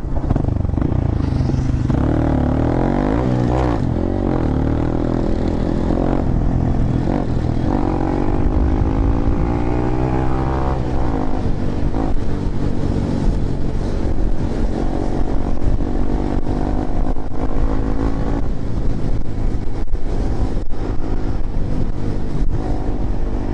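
Small single-cylinder motorcycle engine under way, its pitch rising and falling several times with throttle and gear changes, the longest climb coming about halfway through.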